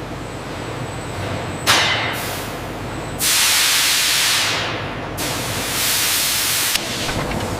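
Factory machinery hissing in bursts over a steady machine noise: two short hisses about two seconds in, then two loud, long hisses of about two seconds and a second and a half, each cutting off suddenly.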